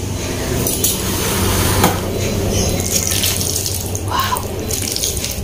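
Steady rushing noise of an airplane passing overhead, with a couple of short clicks about one and two seconds in.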